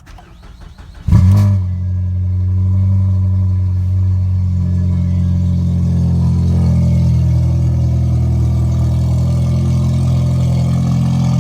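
Ford Fusion car engine starting from cold about a second in, catching with a brief rise in revs, then settling into a steady idle.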